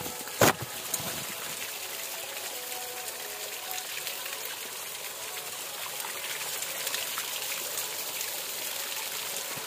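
Small waterfall splashing and trickling steadily over rocks, with one sharp click about half a second in.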